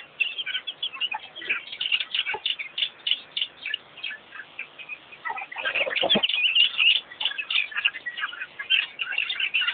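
A dense chorus of many small birds chirping rapidly and overlapping, growing busier about halfway through. There is a short low knock a little after the middle.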